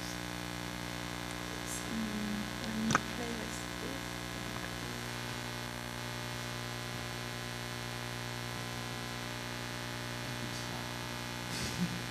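Steady electrical mains hum on the sound system, with a faint click about three seconds in.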